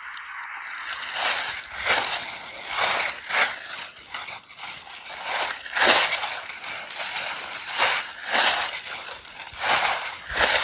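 Plastic tarp crinkling and rustling as it is pulled from its bag, unfolded and shaken open, in a run of loud, irregular crackles.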